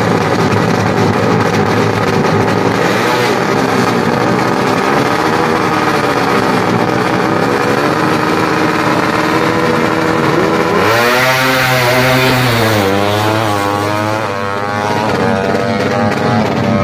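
Tuned four-stroke underbone (bebek) drag bike engine blipping its revs at the start line. About eleven seconds in it launches hard and pulls away through the gears, the pitch climbing and dropping with each shift.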